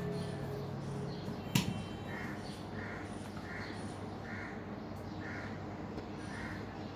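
A crow cawing repeatedly, about six caws evenly spaced, while background music dies away within the first second. One sharp click about a second and a half in, from the plastic handlebar stem of a kids' scooter being fitted.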